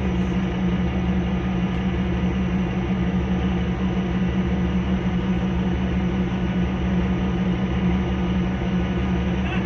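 A boat's engine running with a steady, unchanging low drone.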